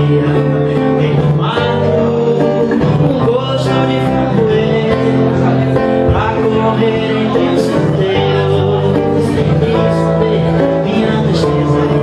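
A man singing a song to his own classical guitar accompaniment.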